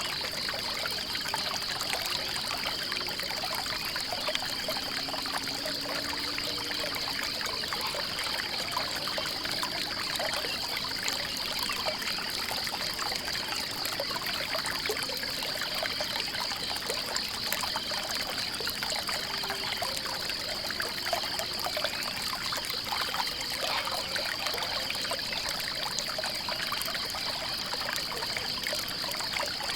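Stream water trickling and splashing steadily, with a continuous high, rapidly pulsing trill over it.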